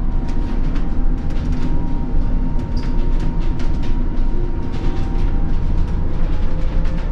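Cabin noise inside a Scania Citywide BEV battery-electric city bus on the move: a steady low rumble of tyres and road with a thin steady whine from the electric drive and frequent light rattles.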